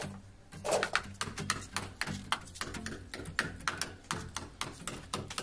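Irregular knocks and taps, several a second, typical of hammering nails into wooden formwork, over a steady low hum.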